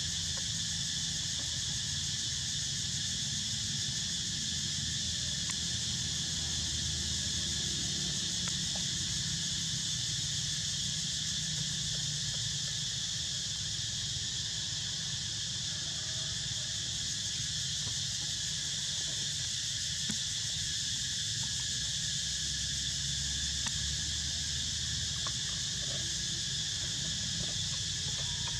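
A steady, high-pitched drone of insects calling together, unchanging throughout, over a low rumble.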